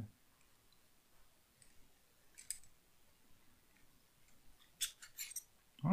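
Faint plastic clicks from a Zhiyun Rider-M gimbal being handled as it is opened to fit the battery: one click about two and a half seconds in, then a quick cluster of clicks near the end.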